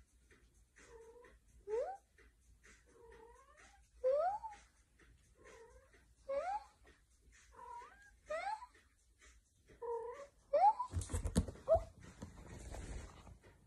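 A domestic cat meowing repeatedly, about one short call a second: quieter level meows alternate with louder ones that rise in pitch. Near the end there is close rustling and bumping as the cat presses against the microphone.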